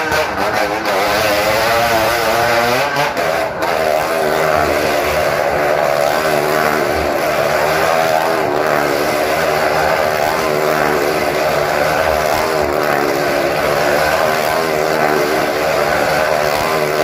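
Motorcycle engine running hard as the bike circles the vertical wooden wall of a wall-of-death drum. Its pitch swings up and down for the first few seconds, then holds steadier at high revs.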